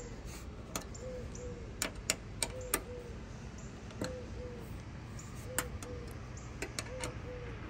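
Light metal clicks and ticks of a hex key working a mounting bolt in an aluminium roof-rail channel as the bolt is threaded in by hand. A faint short two-note tone repeats about every second and a half.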